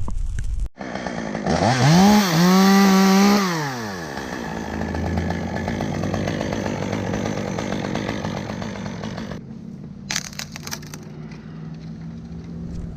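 Chainsaw revved up twice in quick succession to full throttle, held there for about a second and a half without cutting, then dropped back to a steady idle.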